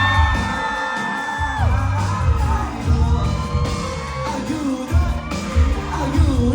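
Thai indie pop band playing live, with a singer holding a long note over heavy bass and drums for the first second and a half, heard from within the audience in a large hall.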